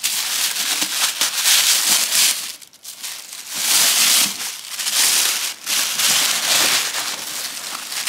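Tissue-paper wrapping crinkling and rustling as it is pulled back by hand from a new tote bag, in uneven surges with a short lull about two and a half seconds in.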